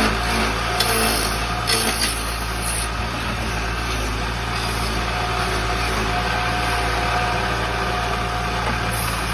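Wood lathe running with a steady motor hum while turning a wooden charpai leg, with a brighter hiss in the first couple of seconds.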